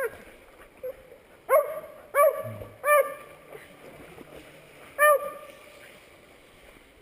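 A hound barking in short yelps, about five in all: one at the start, three in quick succession around two seconds in, and one more about five seconds in.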